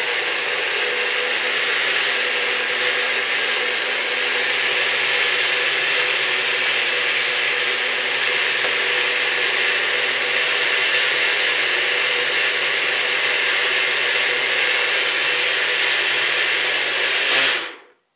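Nutribullet blender motor running at a steady pitch, blending leafy greens, tangerine and banana with water into a smoothie. It cuts off abruptly near the end when the cup is released.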